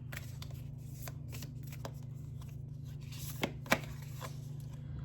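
Oracle cards shuffled by hand: an irregular patter of soft card flicks, with two sharper snaps about three and a half seconds in.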